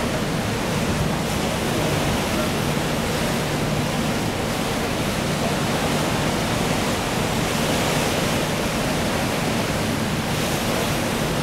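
Steady rush of sea swell washing between a ship's hull and a tender lying alongside, with a low steady engine hum underneath.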